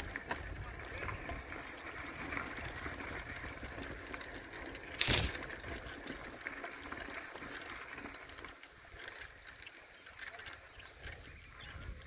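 Bicycle riding along a dirt singletrack: steady tyre and frame rattle over a low rumble, with one sharp knock about five seconds in. The rumble drops away for the last few seconds.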